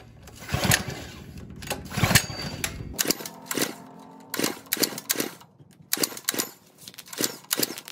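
Recoil pull-starter on a 99cc Viper tiller engine, yanked over and over: the cord rasps and the engine turns over in short clattering bursts without ever catching, because its on/off switch is still off.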